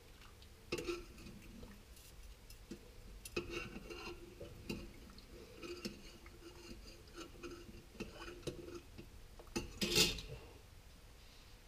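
Metal spoon stirring and clinking against a saucepan of milk tea on the stove: scattered light clicks and taps, with one louder, longer scrape or clatter about ten seconds in.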